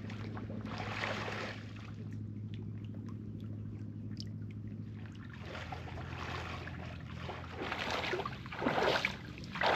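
A steady low engine hum that fades out about halfway, then a few bursts of splashing water near the end.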